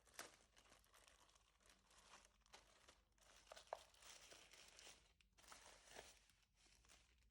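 Keyboard packaging crinkling and rustling as it is handled and unwrapped, with a few sharp light clicks among the rustle.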